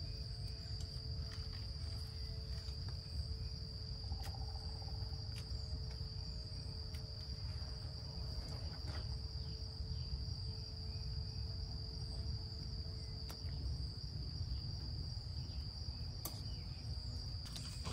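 Crickets trilling steadily in one unbroken high-pitched note, over a low rumble, with a few faint snips of pruning shears.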